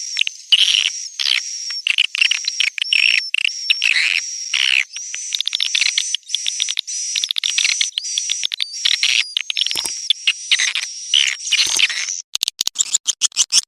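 Swiftlet lure sound: recorded swiftlet chirps played in quick succession, roughly two a second. About a second and a half before the end it changes to a fast train of sharp clicks.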